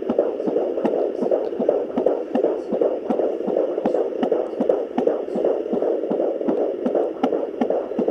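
Fetal heartbeat at 19 weeks picked up through a fetal Doppler's speaker: a fast, even pulsing beat over a steady whooshing noise.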